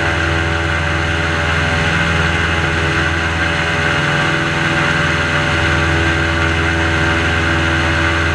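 Airboat engine and propeller running steadily while the boat cruises, a constant drone that holds the same pitch and level throughout.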